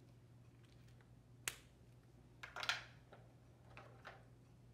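Quiet room with a steady low hum, broken by one sharp click about a second and a half in and a short rustle about a second later, then a few faint ticks: small handling noises.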